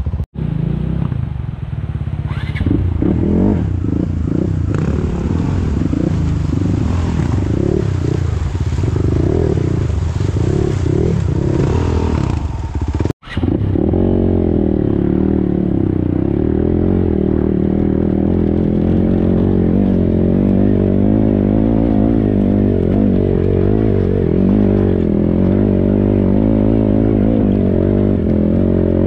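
Vehicle engine running, its pitch wavering at first; the sound cuts out for an instant about thirteen seconds in, then the engine runs on steadily.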